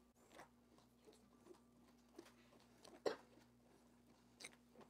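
Mostly near silence, with a few faint knocks and scrapes of a wooden pestle working seedy raspberry purée through a metal cone strainer; the clearest knock comes about three seconds in.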